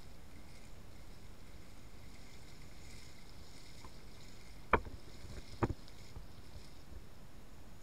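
Sea surf washing over the beach, a low steady wash, with two sharp knocks about a second apart midway through.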